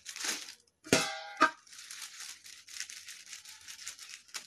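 Plastic sheet and aluminium foil crinkling and crackling as they are handled and pressed by hand. About a second in, two short, loud clanks with a brief ringing tone: a steel plate being set down and pressed.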